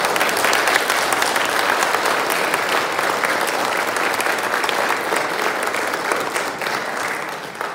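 Audience applauding. The clapping is already going at full strength as it begins, holds steady, and dies away near the end.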